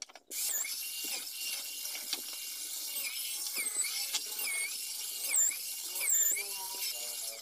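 Corded electric drill mounted in a drill stand, running and boring into a wooden door stile. It starts abruptly, gives a steady high whine, and dips in pitch about five times as the bit bites into the wood.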